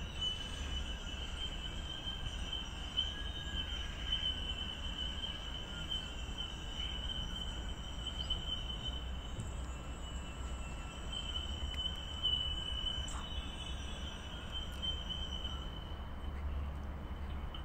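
Outdoor ambience during snowfall: a steady high-pitched whine that swells and fades, over a low rumble.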